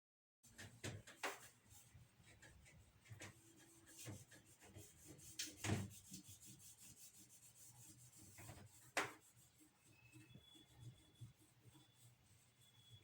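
Faint, scattered light knocks and rubbing, with the loudest knocks about six and nine seconds in.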